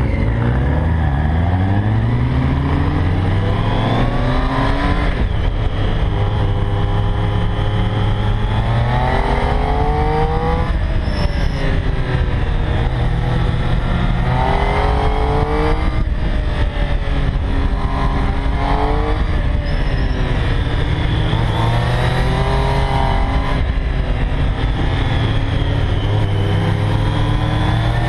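2012 Triumph Street Triple R's 675 cc three-cylinder engine heard on board, accelerating hard and easing off in turn: its pitch climbs and drops back about six times.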